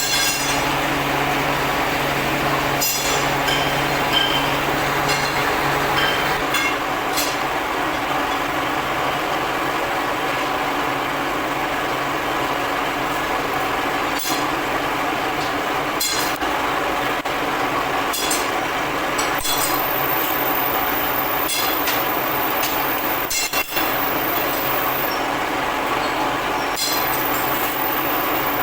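Steady mechanical running noise with scattered sharp metallic clinks.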